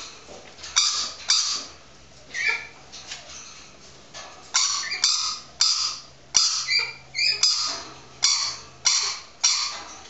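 Rainbow lorikeet imitating a small yappy dog: about a dozen short, sharp, high-pitched yaps at uneven intervals, with a lull of about two seconds partway through. It is calling from inside a perspex box toy, which amplifies its voice.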